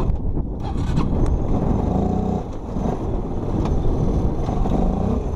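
Engine of a small Chinese ATV running as the quad moves off at low speed, a continuous low mechanical rumble.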